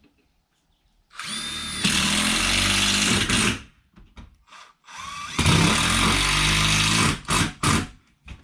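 Power drill driving roofing screws: two long runs of a couple of seconds each, the first starting with a rising whine, then a few short bursts near the end as the screws are snugged down.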